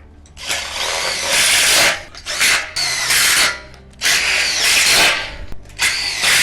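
Power drill driving screws through a bracket into a steel shed frame, in about five short runs with brief pauses between, the motor pitch rising during each run.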